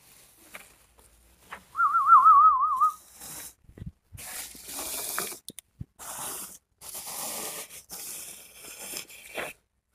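A short warbling whistle about two seconds in, its pitch wobbling rapidly up and down, followed by intermittent rustling and crinkling of the TV's cardboard and plastic packaging as the set is taken out of its carton.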